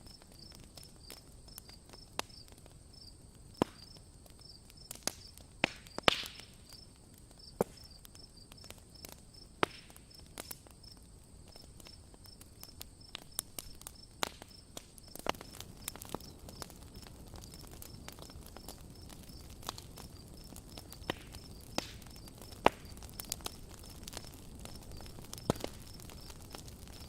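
Wood campfire crackling: irregular sharp pops and snaps over a low hiss, with a louder crack about six seconds in. Crickets chirp steadily in the background.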